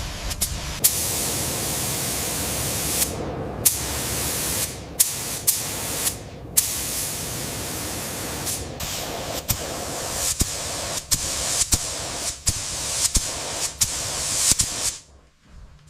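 Compressed-air spray gun hissing in long bursts, broken by short pauses, with sharp clicks throughout.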